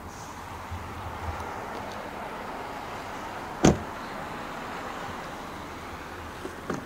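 Rear door of a 2013 Volkswagen Golf shut once with a solid thud about halfway through. Near the end come a few light clicks as the front door handle is pulled to unlatch it.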